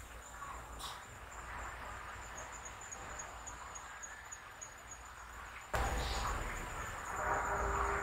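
A steady high-pitched insect trill over outdoor background noise, which jumps louder about two-thirds of the way through.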